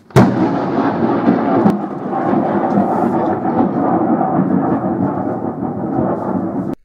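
Thunder: a sudden loud crack, then a long rolling rumble that cuts off abruptly near the end.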